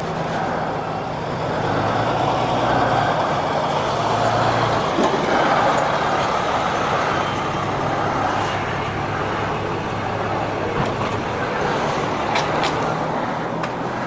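BMW G 650 GS Sertao single-cylinder motorcycle during a starting attempt: a steady low mechanical hum that shifts in pitch several times, with a few faint clicks. The bike has an ongoing hard-starting fault.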